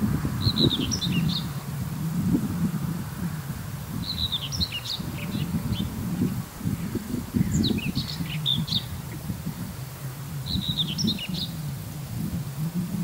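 A small songbird singing short chirping phrases about a second long, four times, roughly every three seconds. Under it runs a steady, gusty low rumble of wind on the microphone, louder than the song.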